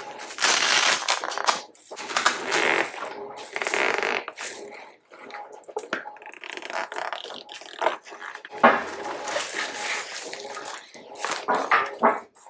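Hook-and-loop (Velcro) strips being pulled apart as a fabric window skin is peeled off its frame: a run of tearing rips, each up to about a second long, with short pauses between them.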